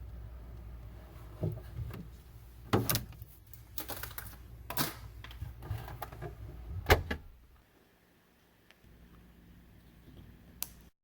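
Kitchen handling sounds: about half a dozen sharp clicks and knocks, like doors and things being opened and set down, over a low steady hum that stops about two-thirds of the way through.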